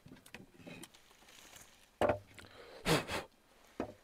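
Handling noises: a padded jacket rustling close by with two louder scuffs around the middle, then a short knock of wood on a wooden plank table near the end.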